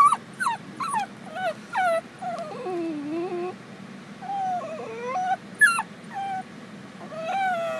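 A Basenji whining and crying: a quick run of short, falling whimpers, then a long wavering cry that sinks lower in pitch, followed by further sharp and drawn-out cries. She is fretting at being left behind in the car while her owner is away.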